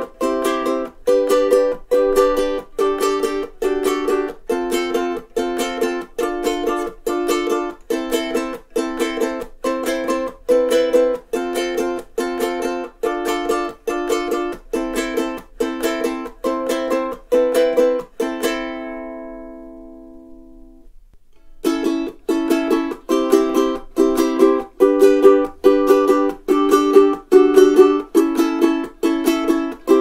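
Strummed chords on an all-solid mahogany Uma UK-20SC standard-shape concert ukulele in an even rhythm. The last chord rings out and fades at around 18 to 21 seconds in. After a brief gap the strumming starts again on the Uma UK-20SCP pineapple-shaped concert ukulele, with the same strings and setup.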